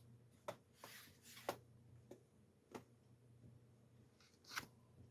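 About half a dozen faint, sharp plastic clicks and light rubbing as the loosened plastic bottom shell of an HP laptop is worked free.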